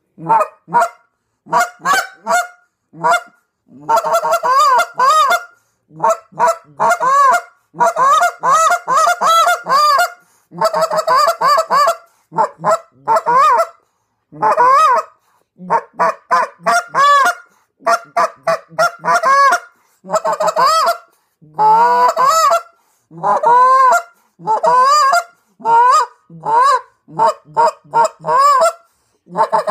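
Molt Gear EX3 goose call blown by mouth, with the hands cupped around it: a continuous string of honks and quick clucks in bursts and rapid runs, with short gaps between. Each note swings up and back down in pitch.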